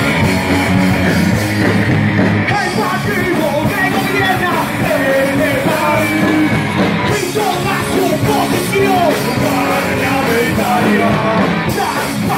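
Rock song with a singer's voice over the band.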